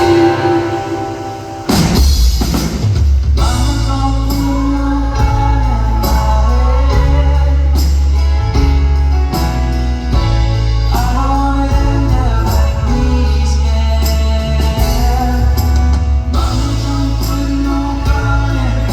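Indie folk-rock band playing live through a concert sound system, with drums, a heavy bass line and singing. After a brief dip, the bass and full band come back in hard about two seconds in.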